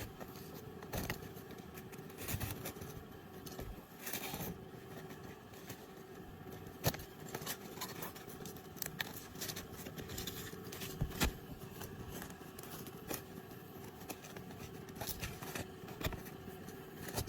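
Hand work on asphalt roof shingles around a vent: irregular scraping, cutting and sharp clicks as the shingles are cut and handled.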